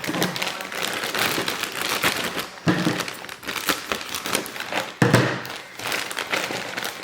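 Cardboard jigsaw puzzle box being handled and turned over: scratchy rustling with many small clicks, and a couple of knocks about three and five seconds in.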